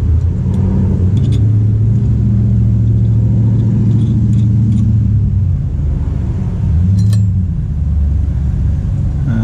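An engine running steadily with a low hum that wavers slightly in pitch, and a light metallic clink about seven seconds in.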